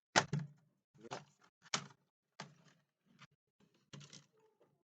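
Plastic laptop parts clicking and knocking irregularly as a panel is pulled at to lift it off, the loudest knock right at the start. The part is still held by a screw that was missed.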